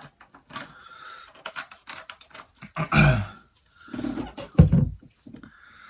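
Close-miked eating: wet chewing and mouth clicks of someone eating noodles and fried chicken, with two louder, lower mouth sounds about three and four and a half seconds in.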